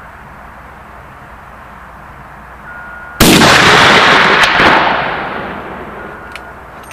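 A single shot from a .50 BMG L.A.R. Grizzly rifle firing an 822-grain incendiary tracer comes about three seconds in: one very loud crack, followed by a rolling echo that fades over about two seconds.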